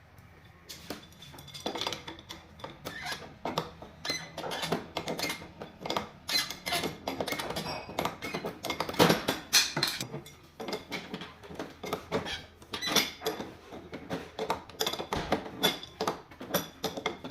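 Rapid, irregular metallic clinking and knocking of tools and metal parts being handled, most intense about halfway through.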